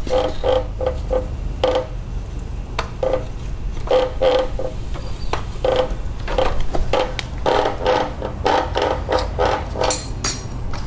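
Rubber coolant hose squeaking in many short, irregular creaks as a screwdriver pries and twists it where it is stuck on the oil cooler's pipe, over a steady low hum.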